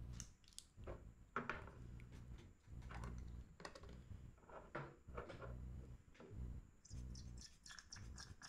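Faint, irregular clicks, taps and rustles of hands handling small tools and parts on a watchmaker's bench, over a faint low hum; the loudest tap is about a second and a half in.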